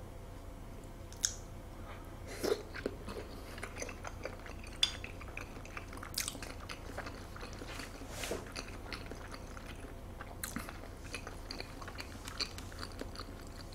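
Close-miked chewing of raw salmon sashimi: wet mouth sounds and smacks, with scattered short sharp clicks.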